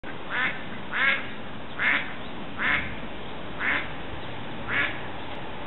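Mallard hen quacking: six short quacks spaced about a second apart, the gaps growing slightly longer.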